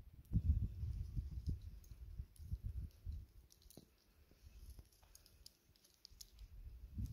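Gusty wind rumbling on the microphone, easing for a couple of seconds midway, with faint scattered small clicks.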